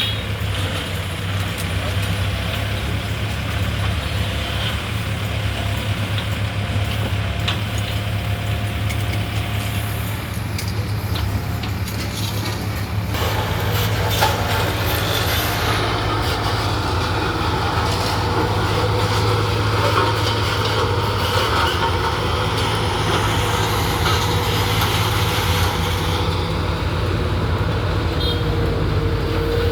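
Heavy diesel construction machinery running steadily, a deep engine drone. About thirteen seconds in it gets a little louder and deeper.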